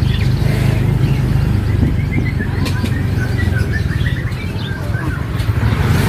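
Many caged songbirds chirping and singing in short, quick calls, thickest from about two seconds in. Under them runs a steady low engine hum, the loudest sound.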